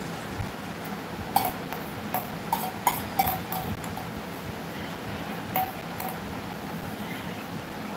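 A run of short, sharp clicks and clinks from small hard objects being handled, several close together between about one and four seconds in and one more near six seconds, some with a brief ring, over a steady background hum.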